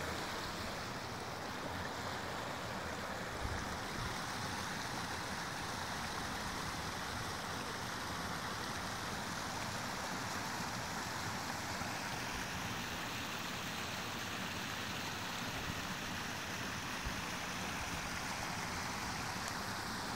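Shallow stream pouring over a low rock ledge in a small cascade: a steady rush of falling water.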